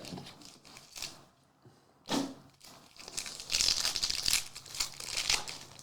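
Foil trading-card pack wrapper being torn open and crinkled, a short rip about two seconds in, then a longer stretch of rustling and crinkling.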